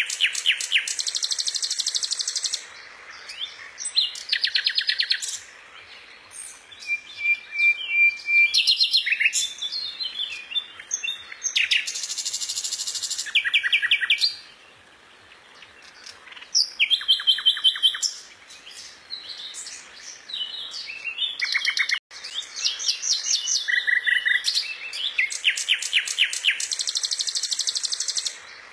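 A songbird singing a long, varied song of rapid trills and buzzy phrases, broken by short pauses. A clear level whistle comes about seven seconds in.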